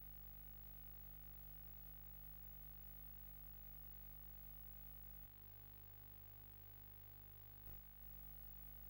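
Near silence: a faint steady electrical hum from the film transfer, which shifts slightly about five seconds in, with one soft click near the end.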